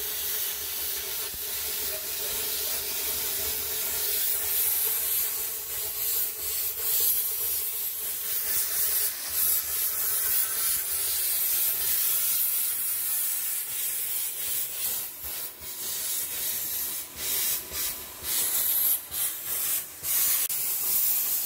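Plasma cutter cutting through the steel wall of a tank: a steady, harsh hiss of the cutting arc, breaking off briefly several times near the end.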